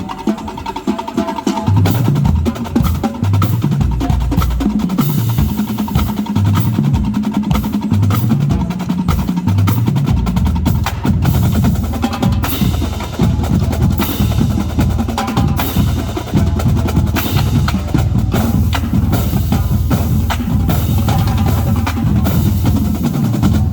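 College marching drumline playing a cadence: fast snare and tenor stick strokes over the bass drums, which play runs at stepped pitches. From about ten seconds in, the bass drums play more steadily and the full line plays continuously.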